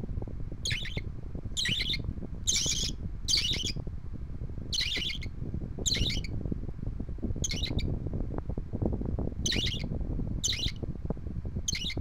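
Budgerigar chick giving about a dozen short high calls, mostly about a second apart, over the steady low rush of an electric fan.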